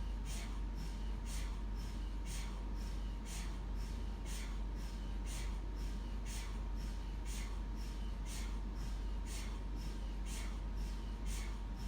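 MRI scanner running a scan sequence: evenly spaced hissing knocks about twice a second over a steady low hum and a faint constant tone.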